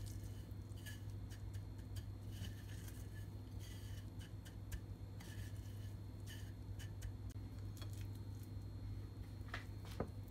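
Scattered light clicks and taps of kitchen utensils and dishware being handled, over a steady low hum, with one sharper click near the end.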